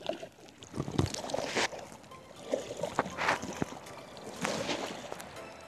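Water splashing and sloshing around a kayak as a paddle dips in, a few short splashes at uneven intervals.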